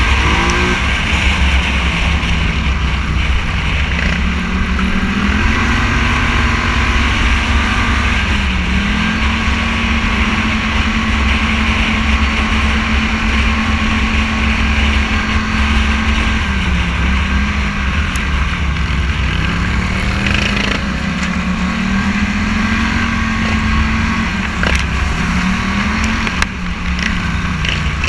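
Scrambler 1000 motorcycle engine under way, its note rising and dropping several times as the rider works the throttle. It holds steady for several seconds in the middle, over constant wind and road noise.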